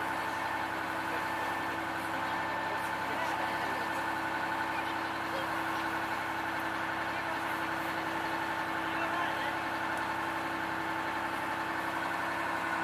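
A WWII landing craft's engine running steadily as the boat motors along, heard from aboard the open hull: an even drone that holds the same pitch throughout.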